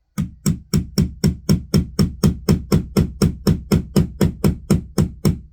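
Rapid, evenly spaced hammer blows, about four a second, on a nail being driven into a wall; the nail is not going in and keeps shifting around.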